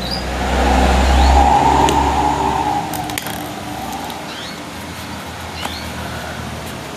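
A motor vehicle passing close by, its engine swelling and fading in the first few seconds, over steady traffic noise, with short high bird chirps every second or so.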